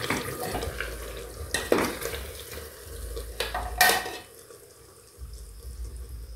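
Metal serving spoon clinking and scraping inside an aluminium pressure cooker as pieces of stewed beef rib are scooped out, with a few sharp clinks, the loudest just before four seconds in.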